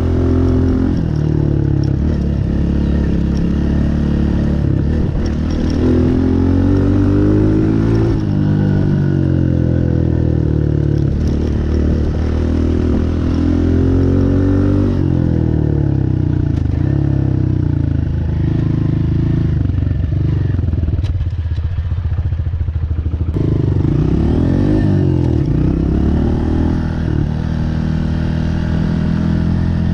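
Honda CRF125F big wheel dirt bike's single-cylinder four-stroke engine running hard under riding, its pitch rising and falling repeatedly as the throttle is worked on and off.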